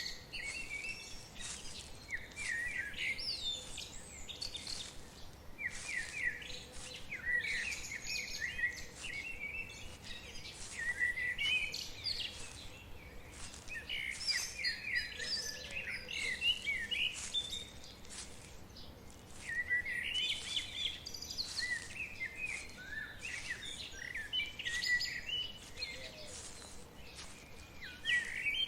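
Songbirds singing in short, repeated chirping phrases every few seconds, over a faint steady background hiss with scattered ticks.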